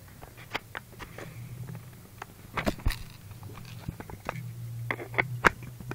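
Handling noise: scattered small clicks and knocks, with a sharper cluster about two and a half seconds in and another near the end, over a low steady hum.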